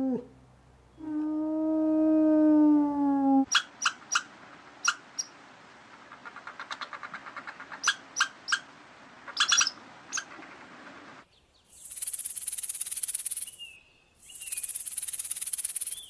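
A wolf howls: the end of one howl, then a long steady howl that falls slightly at its close. A squirrel follows with sharp chirps and a fast clicking chatter. Near the end come two long, loud hissing bursts.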